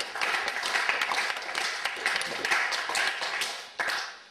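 Applause from a small audience, a dense patter of hand claps that thins out and fades away near the end.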